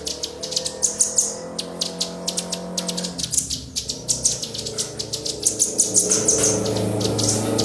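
Small songbirds chirping rapidly, a dense run of quick, high notes with a low steady hum underneath.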